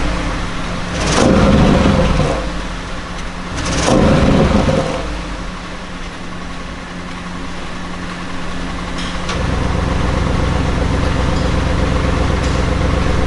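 2020 Audi RS6 C8's twin-turbo 4.0 V8 through its stock exhaust in comfort mode, muted by the factory particulate filters: two short revs from idle, then a steady idle that turns deeper and louder about nine seconds in.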